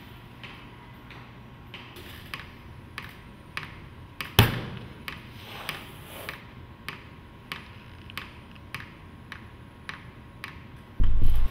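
Clock ticking steadily, about one and a half ticks a second. A single loud thump with a short ringing tail comes about four and a half seconds in, and a loud low boom of about half a second comes near the end.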